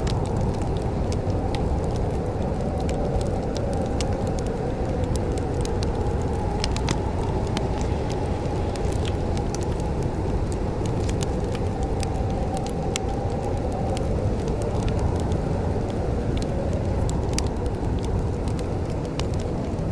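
Wood fire crackling in a fireplace: scattered sharp pops and clicks over a steady low rumble, with a faint wavering hum that fades out about two-thirds of the way through.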